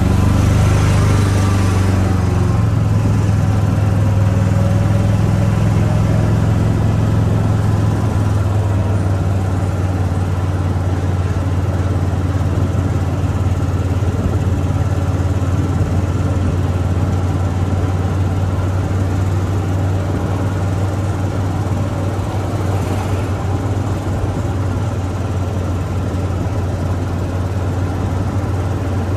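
Shuttle vehicle's engine running steadily with a low hum, easing off slightly in level over the stretch.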